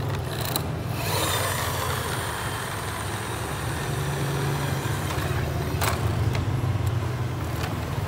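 Toy concrete mixer truck moving across a tile floor, a steady noise with a low hum that swells and fades a few times.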